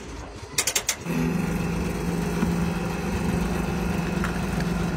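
Fuel-delivery van's hose reel clicking as the hose is pulled out, then about a second in the van's fuel pump unit starts up and runs with a steady hum, ready to dispense petrol.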